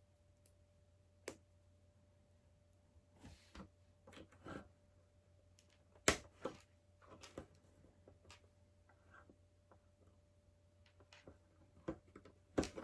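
Plastic LEGO pieces being pulled apart and pressed back together, with scattered light clicks and taps; the sharpest click comes about six seconds in.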